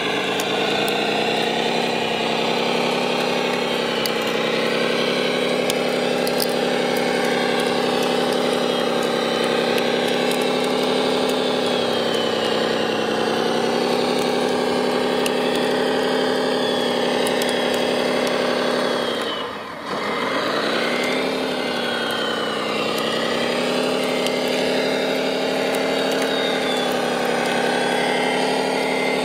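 Radio-controlled Caterpillar D9 model bulldozer running through mud, giving a steady engine-like drone that wavers gently in pitch. About two-thirds of the way through it sags sharply in pitch and loudness for a moment, then picks back up.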